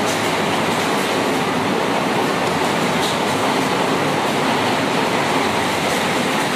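Heavy rain pouring down in strong wind: a loud, steady rushing noise.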